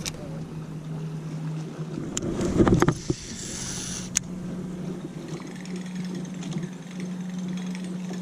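Steady low hum of a boat's motor, stepping slightly higher in pitch about two seconds in, with a few sharp clicks and knocks and a brief hiss about three seconds in.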